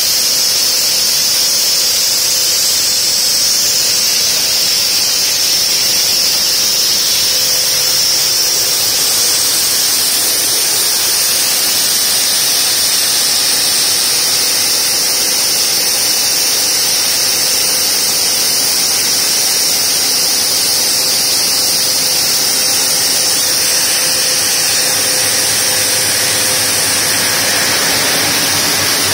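Multiblade block cutter's large diamond circular saw blades cutting through a granite block under a water-cooling spray. The sound is a steady, loud hiss with a high whine over it.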